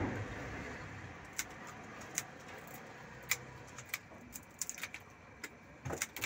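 Scissors snipping through prawn shells: sharp, irregular clicks, coming closer together near the end, over a low background hum.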